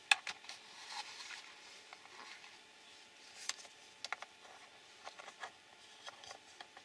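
Small, irregular clicks and light knocks of hard plastic radio-controlled car chassis parts being handled and fitted together by hand, with the sharpest click just after the start.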